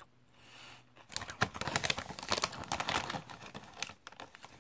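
Plastic crisp packet crinkling and rustling as a hand rummages inside it, from about a second in until about four seconds in.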